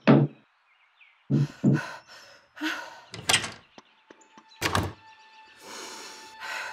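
Knuckles knocking on a heavy wooden door: one knock, then two more a little over a second in, followed by the door moving and a single heavy thud near the end. Soft music comes in after it.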